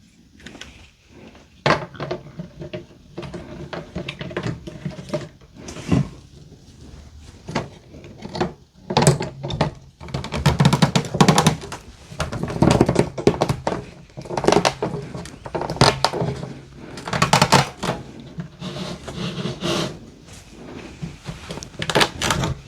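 Irregular knocks and clicks of an organizer's pieces being handled, fitted and pressed together during assembly, busier and louder in the second half.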